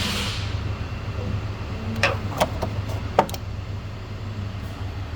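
Steady low engine hum, with four sharp clicks and knocks: two about two seconds in and two about three seconds in.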